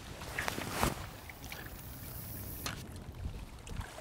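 A feeder rod being cast: a swish and snap as the rod comes over, then fishing line hissing off the fixed-spool reel for about two seconds, stopping with a sharp click.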